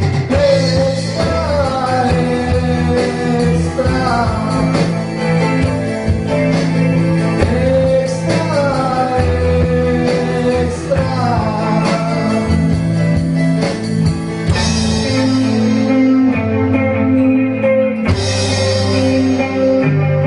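A small band playing a song live: electronic drum kit, electric bass, electric guitar and keyboard, with a singing voice over them. The bass line holds steady underneath while a melody falls in repeated phrases every few seconds.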